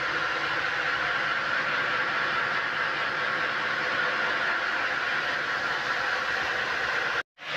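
Water-cooled circular saw of a stone block cutter grinding steadily through a silver-grey granite-like block, with its cooling water splashing over the blade. The sound cuts out for a moment near the end.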